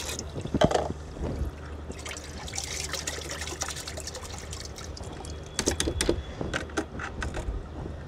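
Water trickling and splashing into a bucket of soaking vegetable scraps, with a few sharp metal clinks in the second half as a steel mesh strainer is handled against a steel pot of strained liquid.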